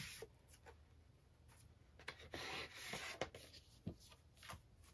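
Faint rustling and sliding of paper and card record sleeves as a 7-inch vinyl record is taken out of its picture sleeve and paper inner sleeve. A longer swish comes about two to three seconds in, along with a few light taps.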